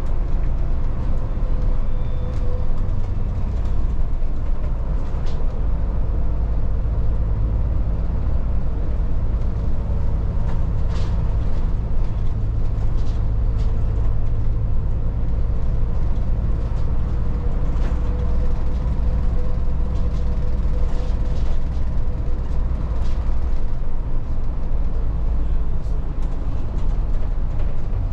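Volvo 8900 city bus driving, heard from inside the cabin: a steady low diesel drone with a faint wavering whine over it and scattered short clicks and rattles.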